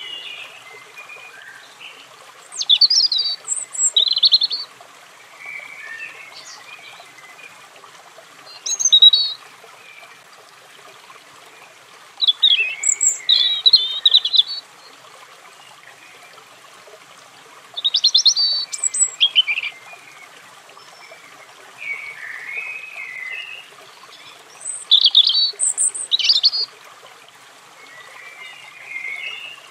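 European robin singing: short, high, warbling phrases of quick varied notes and trills, about seven in all, each a second or two long, separated by pauses of a few seconds.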